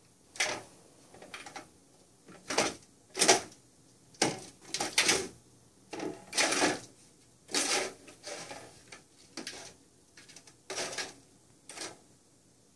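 Round plastic cat track toy rattling and clattering as a cat paws the toy mouse around inside it. The noises come as about a dozen short, uneven bursts.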